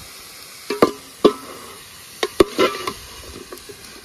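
Metal slotted spoon knocking and scraping against a large aluminium cooking pot as chunks of rabbit meat are stirred into thick fried masala. It gives a run of sharp, ringing clanks between about one and three seconds in.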